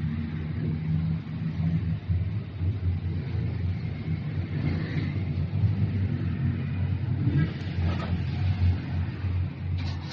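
Vehicle engine running with a low, uneven rumble.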